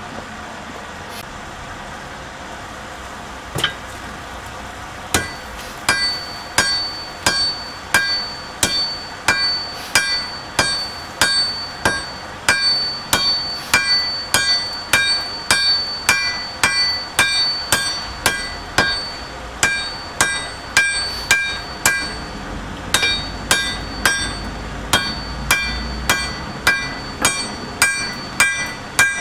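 A hand hammer strikes red-hot spring steel on an anvil, setting a forge weld in a billet. The blows start about five seconds in and come about twice a second, each followed by a bright ring. A steady rushing noise runs underneath.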